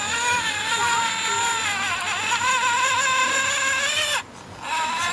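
Electric motor and geared drivetrain of a scale RC crawler truck whining as it crawls slowly, the pitch wavering with the throttle. It cuts off abruptly about four seconds in and starts again half a second later.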